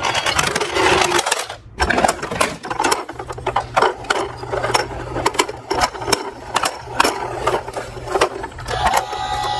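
Small toy vehicles clicking and clattering in a quick, irregular run of light knocks, with a faint steady low hum underneath.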